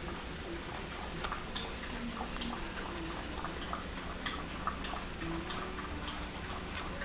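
Three-week-old Chinese Crested puppies playing: irregular light clicks and taps with a few faint short squeaks over a steady hiss.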